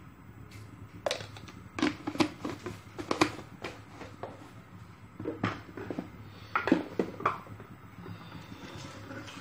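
Kitchen utensils being handled: a quick string of sharp clicks and knocks, then a second cluster a couple of seconds later, over a low steady hum.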